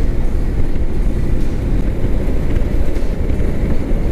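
Motorcycle riding at a steady pace: a continuous low rumble of engine and wind rush on the microphone.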